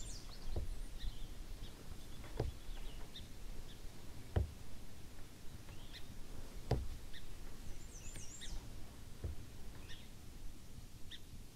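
Small birds chirping in short calls, with a soft knock about every two seconds, five in all.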